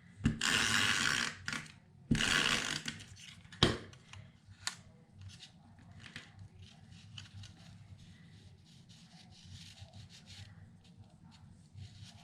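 Paper being handled and slid across a scrapbook layout: two rustling rubs of about a second each, a sharp tap, then faint small rustles and taps.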